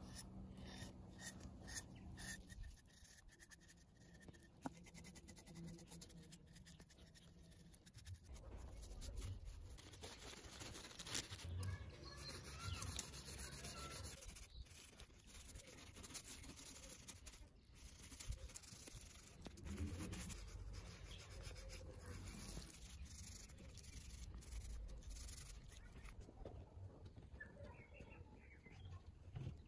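Faint rubbing and scrubbing of a sponge worked back and forth over the turned wooden screw and handle of an old bookbinder's plough.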